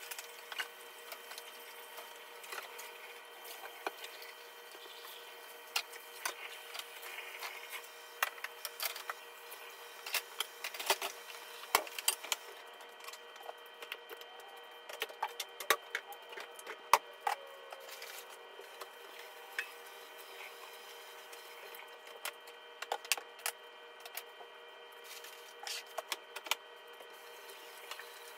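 Dishes and kitchen items being handled at a sink and dishwasher: scattered sharp clicks, knocks and light clatter throughout, over a steady hum.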